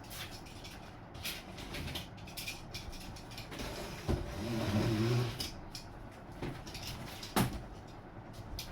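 A large cardboard box being handled and opened: scattered scrapes and clicks of cardboard, a longer scraping stretch around the middle, and one sharp knock about seven seconds in.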